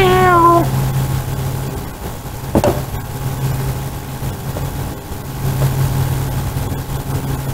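A man's long, loud burp, one held tone that stops about half a second in. A steady low engine-like hum runs underneath, and there is a single sharp knock about two and a half seconds in.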